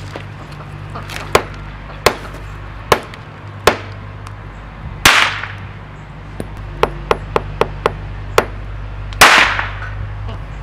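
A run of sharp cracks, four evenly spaced and then a quick burst of five or six, and two louder bangs that trail off in a hiss, about halfway and near the end, over a steady low hum.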